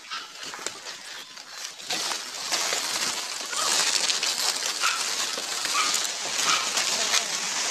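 Dry leaves and undergrowth rustling and crunching under a person's feet and body as they push through, growing louder about two seconds in. A few short chirps sound over it.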